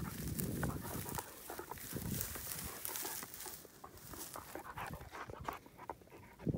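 A large dog breathing and moving close to the microphone in dry grass, with irregular rustling and crackling of the grass stems.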